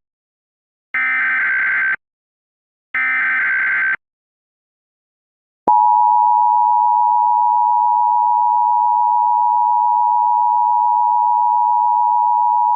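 Emergency Alert System tones. Two short buzzing bursts of SAME header data come about a second apart. After a brief silence, the steady two-tone EAS attention signal starts about six seconds in and holds, announcing a tornado watch alert.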